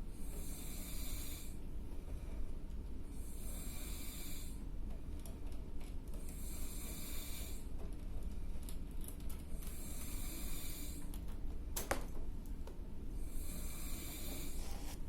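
A sleeping man snoring loud, a snoring breath about every three seconds, five in all. A brief falling whistle comes about twelve seconds in.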